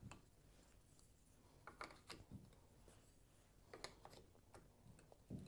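Near silence with a few faint, scattered clicks and taps as small gauntlet blade pieces are handled and slotted onto a statue's forearm.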